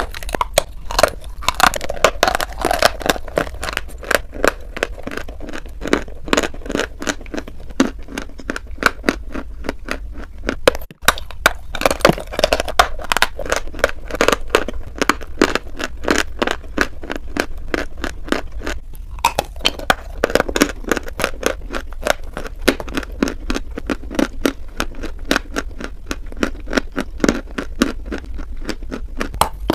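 Close-miked biting and chewing of dry white chalk blocks: dense crackling and crunching, with a brief break a little over a third of the way in.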